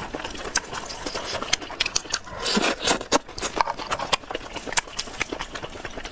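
Close-miked eating of river snails: rapid wet clicks and smacks of the mouth and shells, with a longer, louder burst about two and a half seconds in.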